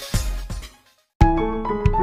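Background music: one track fades out, there is a brief gap of silence, and about a second in a new tune with clear notes and a steady beat starts.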